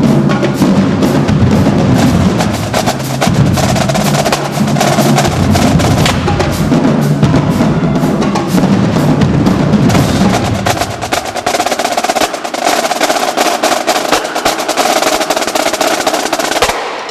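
Marching drumline playing a fast cadence: rapid snare-drum stick strokes over tenor drums and deep bass drums. The bass drums drop out about two-thirds of the way through, leaving the snares and tenors. The whole line cuts off sharply together near the end.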